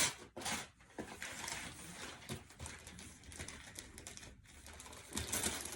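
Rustling and crinkling of wrapping paper and cardboard packaging being handled and torn during unwrapping, with scattered small clicks.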